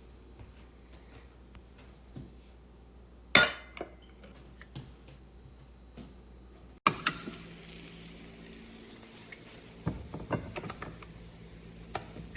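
Cookware clatter: one loud ringing clink of a pot or lid about three seconds in. About seven seconds in the sound changes abruptly to a steady hiss, with a few lighter clinks of pans and utensils near the end.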